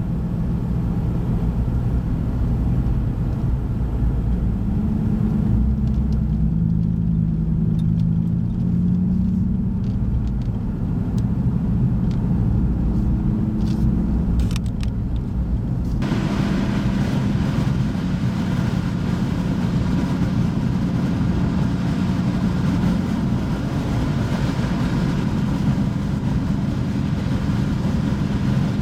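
Steady engine and road noise inside a moving car's cabin, with a low hum. About halfway through a louder hiss comes in suddenly and stays.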